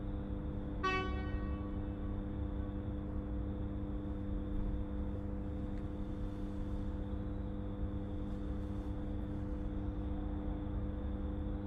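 Steady low hum over a rumbling background, with one short ringing tone about a second in that fades quickly.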